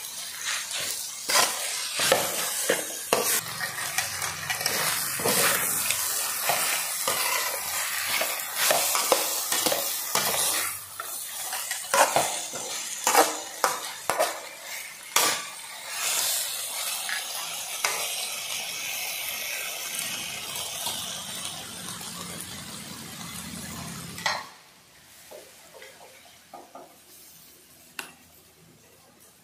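Spatula scraping and clacking against a metal wok as frog meat and basil leaves are stir-fried, over a steady sizzle. Near the end the sizzling and scraping stop, leaving a few soft clinks.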